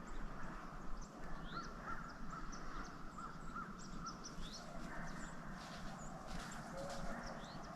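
Faint wild birds calling: a run of short, evenly repeated chirps through the middle, with scattered quick rising whistles higher up.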